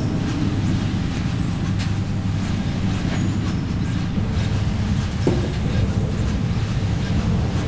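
A steady, dense low rumble with no clear rhythm or pitch.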